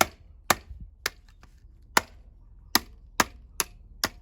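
About eight sharp, hard blows at an uneven pace, smashing a microwave's plastic control panel and its circuit board.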